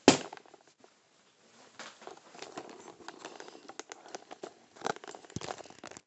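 A 4x4 speed cube set down and hands slapping a Speed Stacks stackmat timer to stop a solve: one sharp knock. After a short pause come scattered light clicks and rustling from handling, with two stronger clicks near the end.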